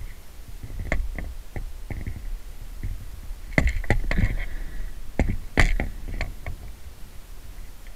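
Handling noise from a camera on a pole: scattered knocks and clicks over a low rumble, with a louder cluster of knocks in the middle.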